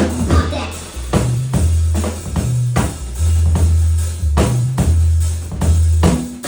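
Live band playing a groove: a drum kit keeping a steady beat under a deep, held bass line.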